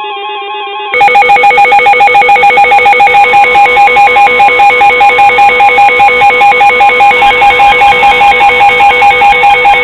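Weather alert radios sounding their alarms for an incoming warning. A chord of steady electronic tones plays, then about a second in a much louder rapid beeping starts, about five beeps a second, with several tones sounding together.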